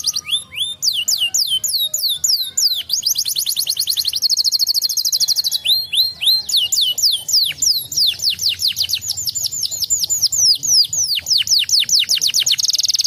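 Domestic canary singing a long, fast song: runs of quickly repeated falling whistled notes, several a second, broken by very fast buzzy trills about three seconds in and again near the end.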